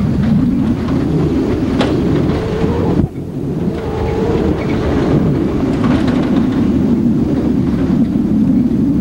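Truck driving on a gravel road: a loud, steady rumble of engine and tyres on gravel, with rattles and a sharp click just before two seconds in. The level dips briefly about three seconds in.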